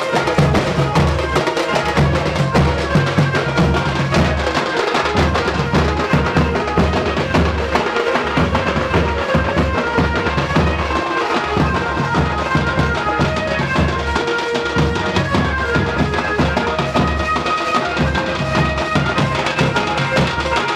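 Loud baraat procession music: heavy, continuous drumming with a melody line over it.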